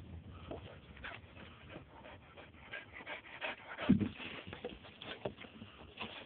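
Puppies whimpering and shuffling about, with small rustles and one louder short cry about four seconds in.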